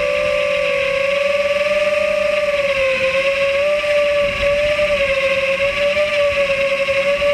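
FPV quadcopter's motors and propellers whining steadily while cruising, the pitch wavering slightly with throttle and dipping a little about three seconds in.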